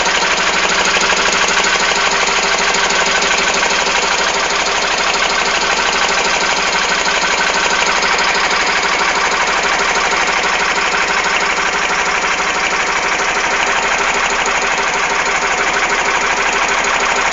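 Fishing boat's engine running steadily at an even speed.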